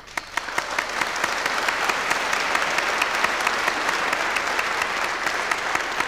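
Audience applause: many hands clapping at once, starting suddenly and holding steady.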